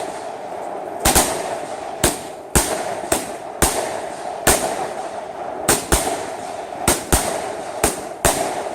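Consumer fireworks going off in quick succession: a string of sharp bangs, about one to two a second, over a steady crackling hiss.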